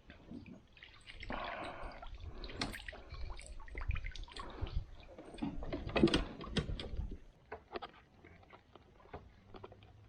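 Water splashing and irregular knocks and thuds of handling in a small aluminium boat, loudest about six seconds in, then a scatter of light clicks.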